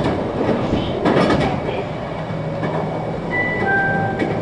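Inside a 521-series electric multiple unit running: steady rumble with wheel clicks over rail joints near the start and about a second in, and a brief high tone that drops in two steps near the end.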